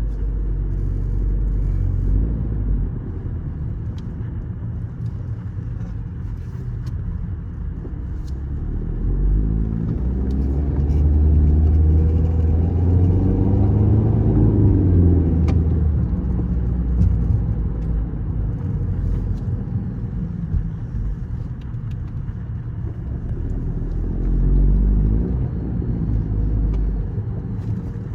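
2019 Toyota Corolla 2.0's four-cylinder engine and running gear on a drive test, a steady low rumble with the pitch rising as the car speeds up around the middle and again near the end. The car has a reported grinding noise that grows when driving forward and stops in reverse.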